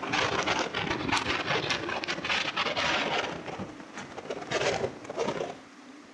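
Strong, gusty storm wind buffeting the microphone in uneven blasts, easing off briefly near the end.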